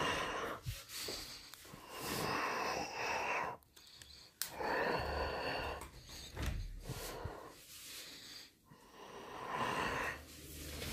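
Sliding wardrobe doors rolling back and forth along their tracks several times, each slide a rushing run of a second or two with short pauses between.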